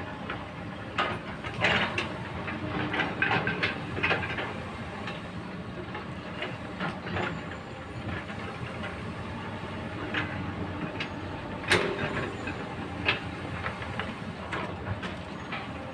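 Komatsu hydraulic excavator's diesel engine running steadily as its steel bucket digs and lifts earth and rock, with irregular clanks and scrapes of steel on stones. One sharp clank stands out late on.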